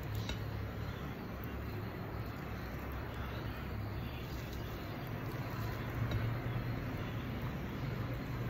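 A steady low hum with a faint hiss above it.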